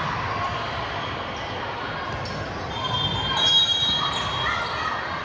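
Gym crowd hubbub during a volleyball rally, with high, short sneaker squeaks on the court floor, loudest about three and a half seconds in.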